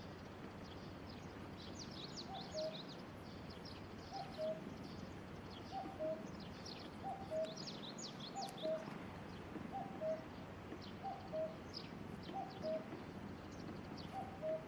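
Birds calling outdoors: a low two-note falling call repeats about every second and a half, starting about two seconds in, over scattered high, quick chirps from small birds.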